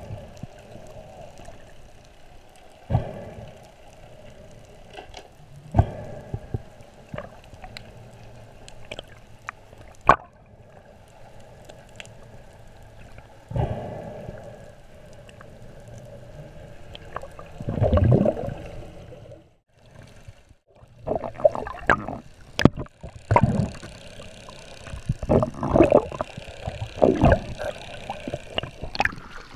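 Underwater sound picked up by a diving camera: a steady water hiss with gurgling surges and sharp knocks every few seconds, busier in the last third.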